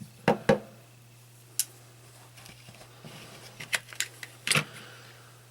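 Small lockback pocket knife being handled and its blade opened: a handful of sharp clicks and light taps, the loudest just after the start and a little after four and a half seconds.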